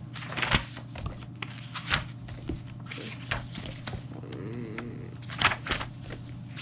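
Pages of a large softcover origami diagram book being turned by hand: several short papery swishes and rustles, spaced irregularly, with the loudest near the start and about five and a half seconds in.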